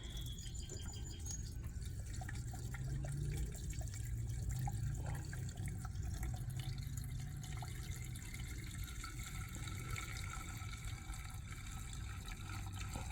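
Gasoline being poured steadily from a can into a Toro recycler lawnmower's fuel tank.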